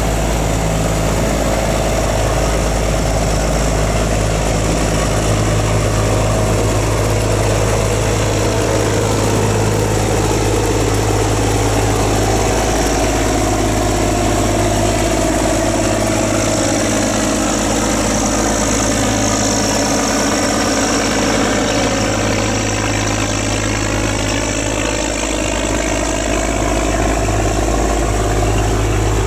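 Boat engines running steadily close by: the deep, even drone of a steel cargo barge's diesel engine. About halfway through, a passing high-speed passenger boat joins in, its engine sound sweeping in pitch as it goes by.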